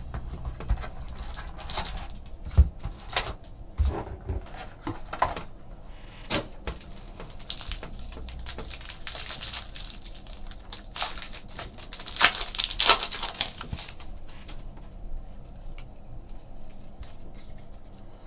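Hands handling a trading-card box and tearing open a foil card pack: irregular clicks and taps of cardboard, with crinkling tear sounds of the wrapper around the middle.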